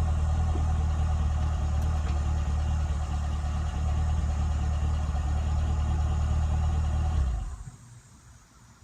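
Chevrolet Camaro engine idling steadily through its exhaust, then switched off about seven seconds in, the sound dying away quickly.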